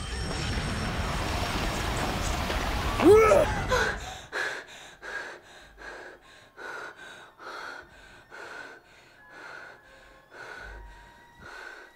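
A loud rushing noise that breaks off about four seconds in, with a woman's short scream just before it ends as she wakes from a nightmare. Then rapid, frightened panting, about two breaths a second.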